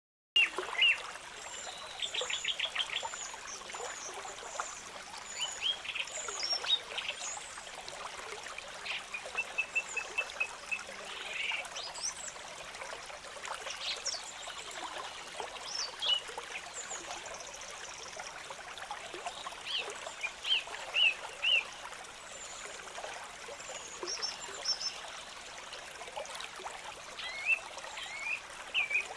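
Small stream trickling steadily, with many songbirds chirping and whistling over it in short, varied calls. It starts suddenly out of silence.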